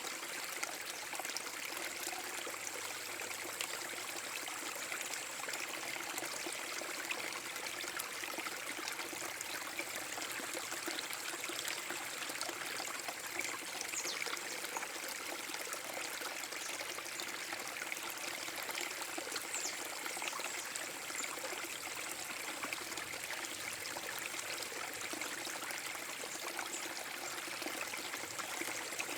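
Small forest-brook waterfall: water pouring and trickling over rocks in a steady, even rush.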